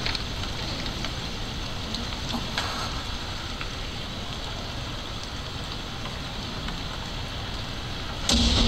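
A steady hiss with a low rumble from an anime music video soundtrack playing over hall speakers, recorded from the audience. A sudden loud burst near the end.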